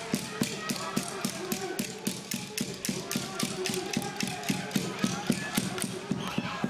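Cheering section's fast, even rhythmic beating, about four beats a second, which stops shortly before the end.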